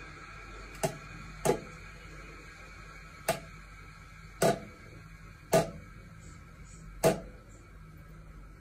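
Water drops falling from a tap into a ceramic washbasin: six separate drips at irregular intervals, over a low steady room hum.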